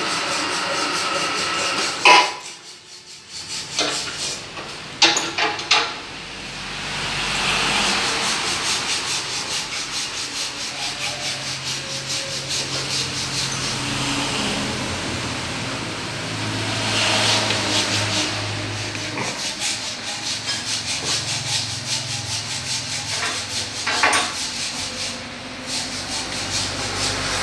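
Rapid, repeated rubbing strokes of hand work, with a few sharp knocks about two seconds in, around five seconds in and near the end.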